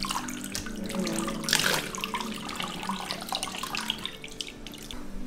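Bath water poured from a plastic cup over a dog in a bathtub to rinse it, splashing and trickling irregularly. The loudest gush comes about a second and a half in.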